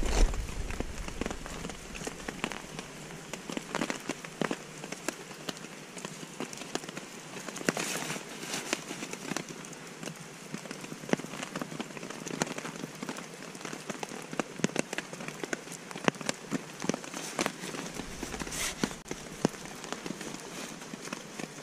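Camping gear being packed by hand: nylon stuff sacks and bags rustling and crinkling as they are stuffed and cinched, with many irregular small clicks and scrapes.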